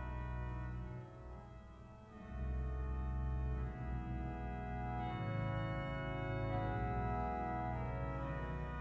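Organ music: sustained chords over a deep bass, the chords changing every few seconds, softer for about a second near the start.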